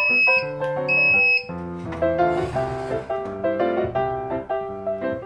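Piano background music, with two long, steady, high-pitched electronic beeps from a convection toaster oven about a second apart near the start.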